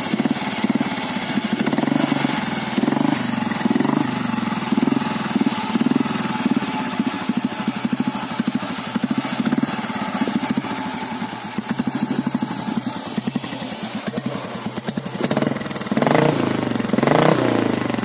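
Royal Enfield Bullet's single-cylinder four-stroke engine idling steadily after a kick start, then revved up and down a few times near the end.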